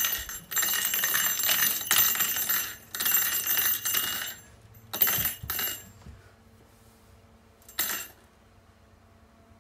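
Wall-mounted ice-fishing rattle reel rattling as its spool turns, with a fish on the line: one long run of rattling from about half a second in to about four and a half seconds, a shorter burst around five seconds and a brief one near eight seconds.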